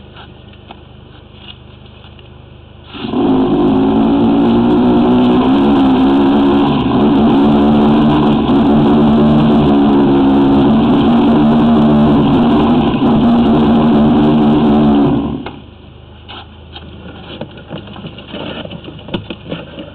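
High-pressure drain jetter firing water into a sewer main to cut out tree roots. The pump's engine goes under load as the jet blasts the roots, starting suddenly about three seconds in and running steadily for about twelve seconds before cutting off.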